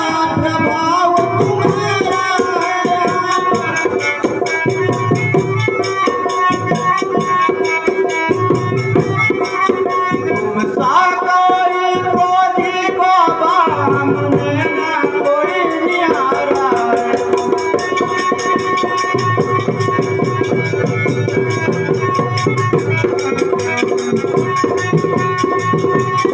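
Indian folk-style stage music: fast, continuous drumming with a rattle-like shimmer under held melodic notes that slide in pitch now and then.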